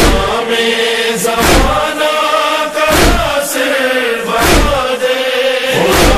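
A chorus of voices chants a drawn-out noha refrain without clear words, with a deep thump about every second and a half keeping the slow matam beat.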